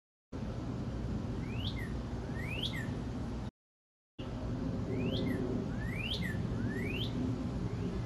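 Northern cardinal calling: short, sharply rising whistled notes about one a second, five in all, over a steady low background rumble. The sound drops out briefly near the middle.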